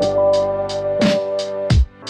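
Background electronic music with a steady drum beat: deep kick drums and sharp hits over held synth notes.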